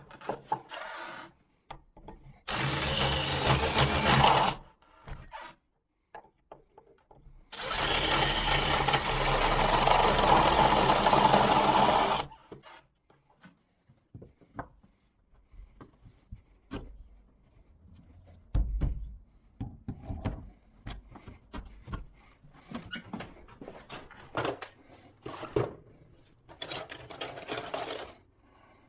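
Power drill running in two bursts, a short one of about two seconds and a longer one of about five, as the lock work goes on. Afterwards come many small clicks and knocks of metal lock parts and screws being handled.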